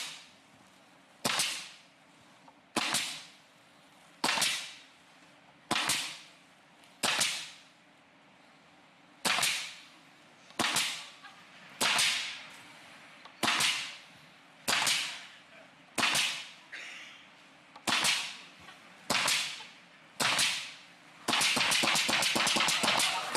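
Pneumatic nail gun firing single shots about every one and a half seconds, some driving nails into a board on a metal table and some firing only air where nails were removed from the strip, about fifteen sharp cracks in all. Near the end, sustained applause takes over.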